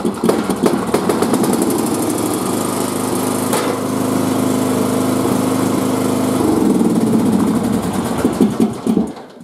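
Briggs & Stratton 17 hp single-cylinder vertical-shaft engine of a Cub Cadet 1170 riding mower running rough with a thumping beat, then cutting off near the end. The owner puts the rough running down to a leaking carburetor needle and seat letting gasoline into the crankcase.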